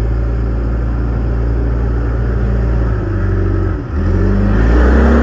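Heavy earthmoving machine's engine running close by. It dips briefly about four seconds in, then picks up again, louder and higher.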